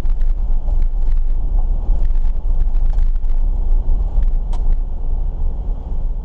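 Jeep Wrangler driving on a gravel road: a steady low rumble of engine, tyres and wind, with frequent small clicks and ticks from gravel and rattles, and one sharper high ping about four and a half seconds in.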